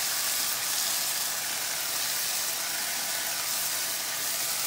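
Thin-sliced chicken frying in oil in a hot pan: a steady sizzling hiss.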